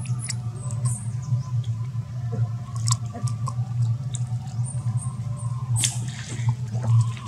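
A young monkey wading and scrambling through a shallow muddy puddle: water patters and splashes, with one sharp splash about six seconds in, and a few short high squeaks.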